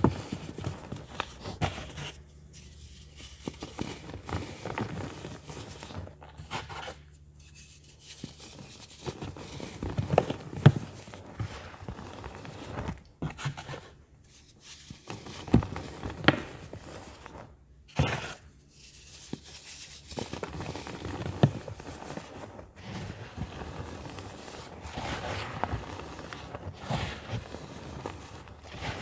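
Hands crushing and crumbling powdery baking soda reforms, an irregular run of crunches and crackles with the soft rustle of loose powder, and a few sharper crunches now and then.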